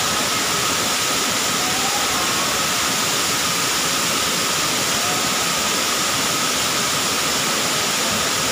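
Waterfall pouring down a rock face into a pool: a constant rush of falling water that holds steady throughout.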